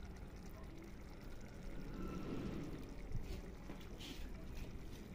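Faint soft trickling and light handling as lemon is added to a clay tajine, with a few small ticks about three to four seconds in.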